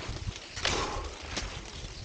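Cross-country skis and poles on groomed snow: a rhythmic swish-crunch of stride and pole plant, two strokes about 0.7 s apart, over a steady low rumble.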